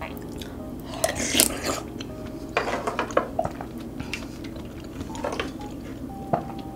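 Spoon clinking and scraping against a large ceramic bowl while scooping thick loach soup, in a handful of scattered clinks, some with a short ringing tone.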